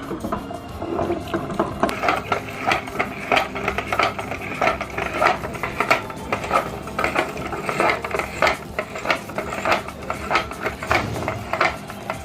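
Glass marbles clicking and clattering hard against the metal of a meat grinder in a rapid, irregular rattle.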